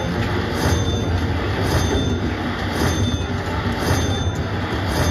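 Bao Zhu Zhao Fu (Firecracker) slot machine playing its bonus-collect sounds as the win meter tallies coin values, with a short high ding repeating about once a second over the machine's steady looping music.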